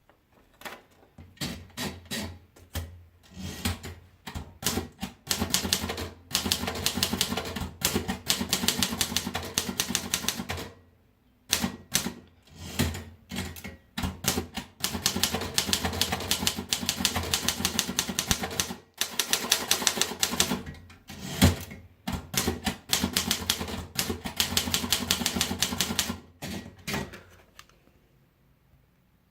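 Torpedo model 18 manual typewriter being typed on: fast runs of keystrokes broken by short pauses, with the typing stopping shortly before the end.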